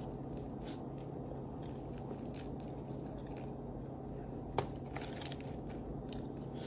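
Bread roll with a firm crust being torn apart by hand and chewed: soft crackles and crunching, with one sharp click about four and a half seconds in.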